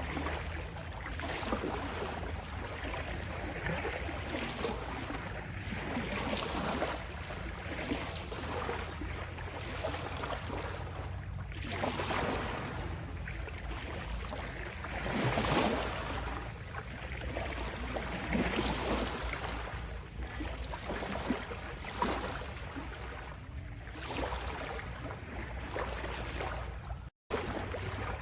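Small sea waves lapping and washing on a shore, rising and falling in gentle surges every few seconds over a steady low rumble. The sound cuts out for an instant near the end.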